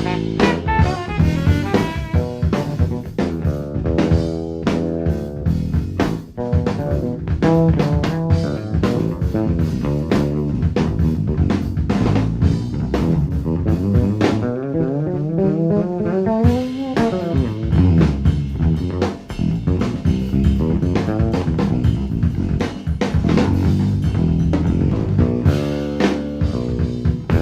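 Live jazz: a drum kit and a Fender Jazz bass play a busy groove, with a long rising pitched slide about halfway through.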